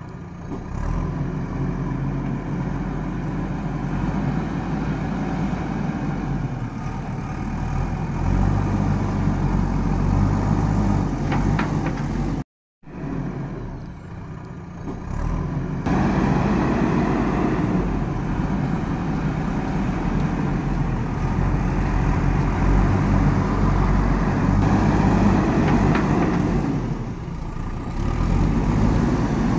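Heavy vehicle engine running steadily, cutting out briefly about twelve seconds in and getting louder from about sixteen seconds in.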